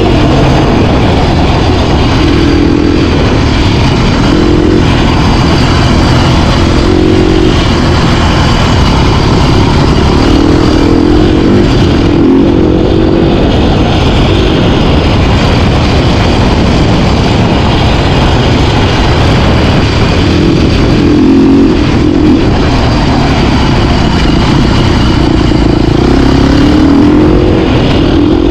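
Off-road motorcycle engine running hard along a trail, its revs rising and falling again and again as the throttle is rolled on and off, under a loud, rough noise that never lets up.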